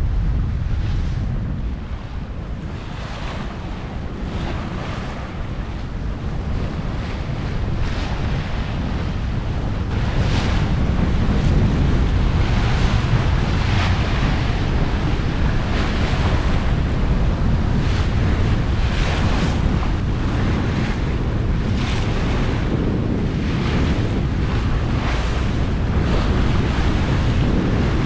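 Wind buffeting the microphone over the rush and splash of water along the hull of a Westsail 32 sailing close-hauled under full sail, with a swash of water every second or two. It gets louder from about ten seconds in.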